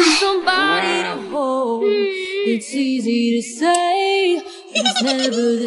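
Background music: a pop song with a high sung vocal holding long, sliding notes.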